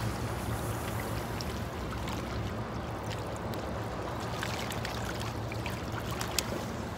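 Steady outdoor wash of wind and small waves lapping along the shore, with a few faint scattered clicks.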